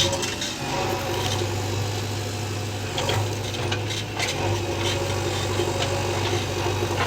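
Backhoe loader's diesel engine running steadily, with a few light clanks over the top.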